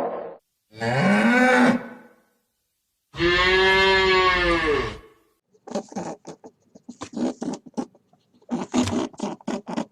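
A cow mooing twice, a short rising moo and then a longer, fuller one. A quick series of short pulsed animal calls follows.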